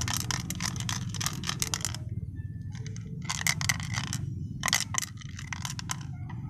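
Hard plastic parts handled by hand: quick runs of clicks and scrapes in three bunches, over a steady low background rumble.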